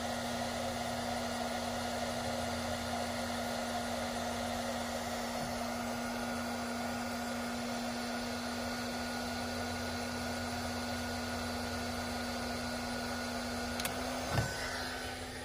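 Bauer 20V cordless heat gun blowing steadily with a constant hum, held on a solder-seal heat-shrink connector while its solder melts. A click and a short knock come near the end.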